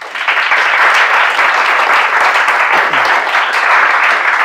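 Audience applauding with steady, dense clapping that starts suddenly right after a talk ends.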